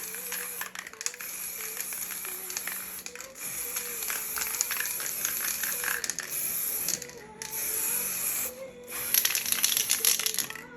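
Aerosol spray paint can spraying in long bursts of hiss with short breaks between them, the last and loudest burst near the end. Background music plays throughout.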